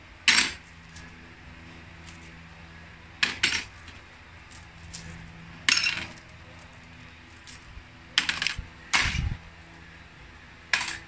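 Small gold-plated metal motorcycle bolts clinking together as they are handled and dropped in handfuls into a plastic tub, about six separate clatters.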